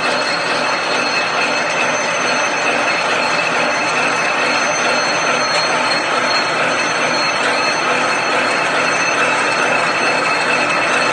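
Single-wire barbed wire making machine running steadily: a dense, rapid metallic clatter from the twisting head and winding spool, with a few thin, steady high-pitched whines over it.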